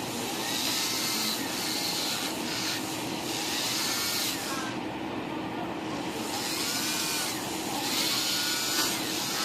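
Electric nail file (e-file) running steadily while sanding acrylic nails, with repeated strokes of grinding hiss each time the bit is worked over the nail.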